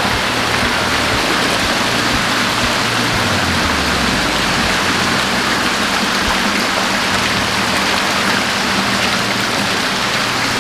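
Water pouring from inlet pipes and splashing into concrete fish-farm tanks: a steady rushing splash.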